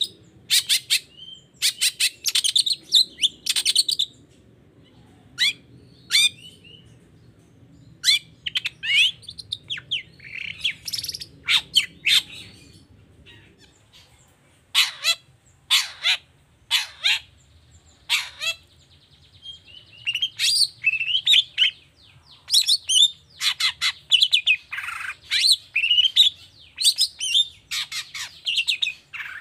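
Long-tailed shrike (cendet) singing: quick runs of short, scratchy chattering calls in irregular bursts, with a lull of about two seconds midway.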